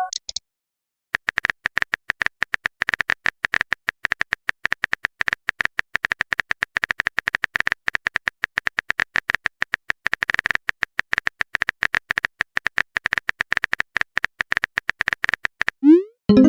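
Rapid smartphone keyboard typing clicks, many a second, run for about fifteen seconds: a message being typed out. Near the end a short rising swoosh and chime sounds, a text message being sent or received.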